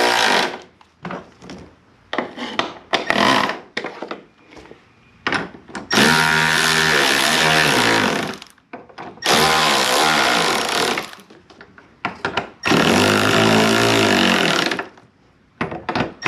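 A power driver runs in three bursts of about two seconds each, its motor pitch wavering as it drives fasteners home, with small clicks and handling knocks in between.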